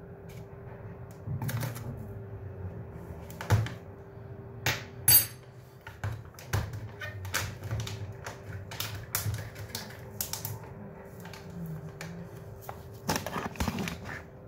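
Irregular light clicks and taps of a metal spoon and coffee gear being handled while ground coffee is spooned into a paper-lined V60 dripper, over a faint steady hum.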